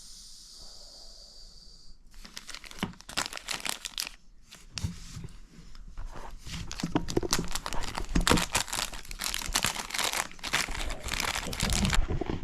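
A steady hiss for about two seconds, then continuous rustling and crinkling with many small clicks and knocks, like hands working with parts and material at close range.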